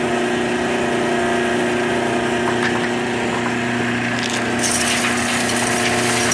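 Motor-driven wood-chip delivery system of a homemade sawdust furnace running with a steady hum. About four seconds in, the rattle of wood chips being moved joins it.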